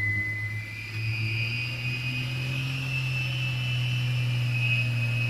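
Off-road 4x4 vehicle's engine running at a steady speed, a constant low drone with a high whine over it.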